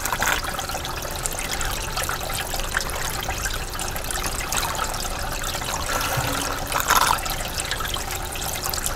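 Water trickling steadily across a Miller table gold-concentrating surface, with two brief louder swells near the start and about seven seconds in.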